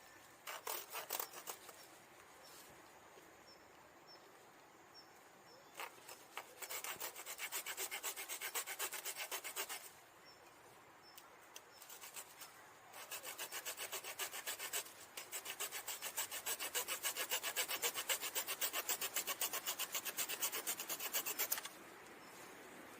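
Small hand saw cutting firewood in quick, even back-and-forth strokes. It comes in several spells with pauses between, the longest lasting about six seconds and ending abruptly near the end.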